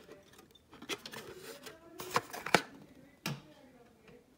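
Plastic clicks and rattles as an ecobee smart thermostat and its white trim plate are handled, with a few sharp clicks between about two and three seconds in.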